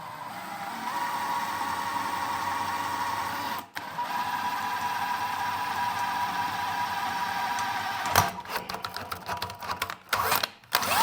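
Electric drill running with a steady whine as a 1/4-inch bit drills a pilot hole in an aluminum oil pan, stopping briefly a few seconds in and then running on. Near the end the drill stops and irregular clicks and knocks follow.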